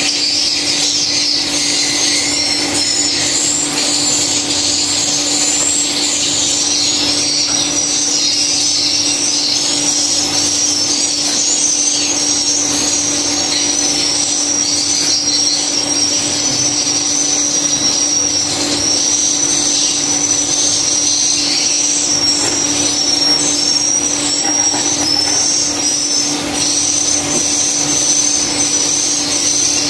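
High, continuous twittering of swiftlets, many short chirps running together, over a steady low hum.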